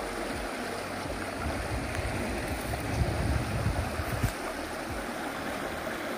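Shallow stream running over rocks, a steady rushing hiss, with uneven low rumbles underneath.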